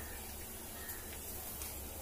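Quiet room tone: a low steady hum under faint hiss, with no distinct event.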